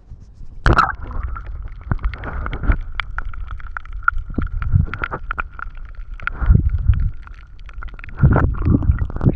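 Water sloshing and gurgling close to the microphone, with rumbling buffets and many sharp knocks, heaviest about a second in and again near the end, under a thin steady high whine.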